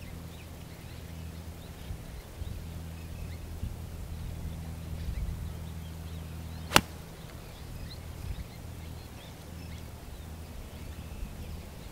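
A golf club strikes a ball off the turf: one sharp crack about seven seconds in, over a steady low hum.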